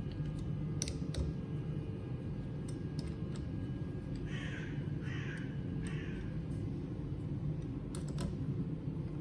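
A crow caws three times in a row, each caw about half a second long, over a steady low background hum. A few light clicks come about a second in and again near the end.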